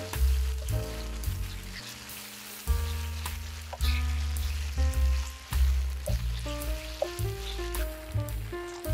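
Sliced marinated beef sizzling as it stir-fries in a nonstick pan, turned with a wooden spatula. Background music with a bass line plays throughout.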